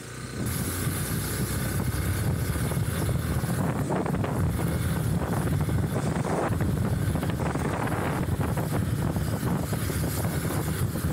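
Hero Xpulse 200 4V's single-cylinder engine running steadily under way on a rough dirt track, with wind buffeting the microphone and stones knocking under the tyres.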